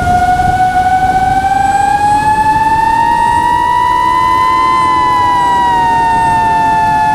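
FPV drone's motors whining, one high pitch with overtones that rises slowly for about four seconds and then eases back down, over low rushing noise.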